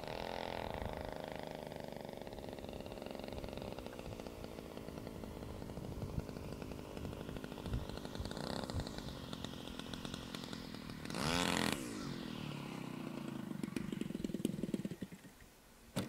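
Engine of a 3-metre Seagull Models Piper Cub RC model plane running in flight, its pitch wandering as it manoeuvres. It gets loud about eleven seconds in as the pitch rises and falls, then fades almost to nothing near the end as it is throttled back to land.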